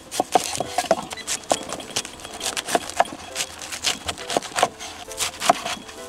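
A kitchen knife cutting through napa cabbage on a wooden cutting board: irregular crisp cuts and knocks of the blade on the board, two or three a second.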